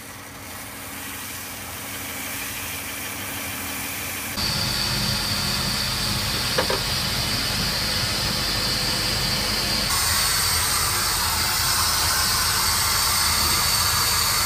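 Benchtop belt sander running, growing louder as a wooden dowel is sanded against the belt. About four seconds in it gives way to a laser cutter running: a steady hiss with a high whine, the hiss growing brighter near the end.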